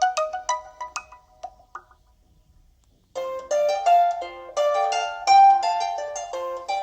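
Alcatel 3088 phone ringtones: one melody of short notes dies away within the first two seconds, and after about a second of quiet the next ringtone starts, a quick melody of short notes.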